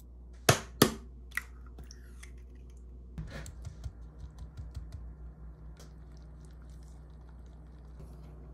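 A small spoon taps twice sharply on a glass mixing bowl, then a wire whisk clicks rapidly against the glass for a few seconds, stirring melted butter, sweetener and salt.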